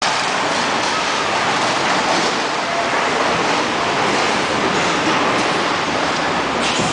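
Steady, loud din of a busy fish-market hall, with motorized turret carts running past among the crowd.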